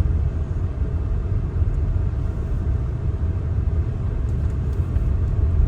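Steady low rumble of a moving vehicle, engine and road noise heard from on board, with a faint steady hum above it.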